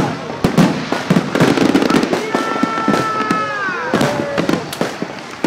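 Fireworks going off in a rapid barrage of sharp cracks and bangs. About halfway through, a high whistle holds steady and then slides down in pitch.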